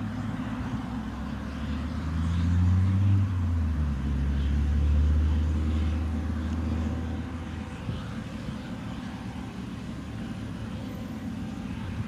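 John Deere C670i HillMaster combine harvester working a wheat field: a steady low engine drone with a rumbling mechanical haze. It swells louder about two seconds in, its pitch dropping a step shortly after, then eases back after about seven seconds.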